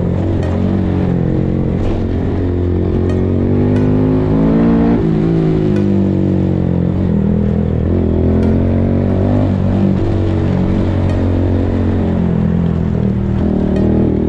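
Honda Monkey 125's single-cylinder four-stroke engine, breathing through a full Akrapovic exhaust, running under way. The revs climb for a few seconds, drop sharply about five seconds in, then hold fairly steady.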